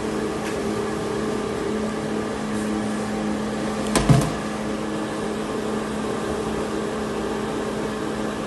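A steady mechanical hum, with one sharp knock about four seconds in.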